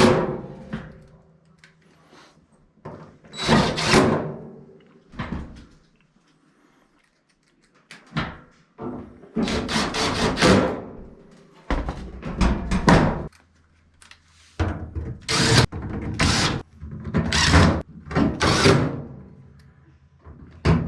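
A series of knocks and thunks, with some scraping, as things are handled and set down. There is a pause of about two seconds a third of the way through.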